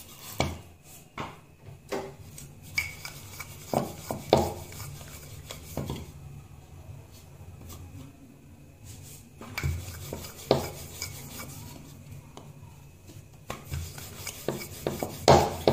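Kitchen utensils knocking and clattering irregularly, with some rubbing, while chapatis are being made, over a steady low hum.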